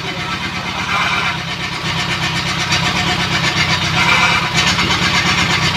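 Freshly restored Fiat 125 Special four-cylinder engine running steadily, just brought back to life.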